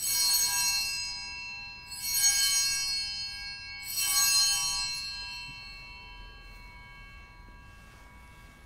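Altar bells rung three times, about two seconds apart, each ring of high tones fading out slowly: the bells that mark the elevation of the chalice at the consecration of the Mass.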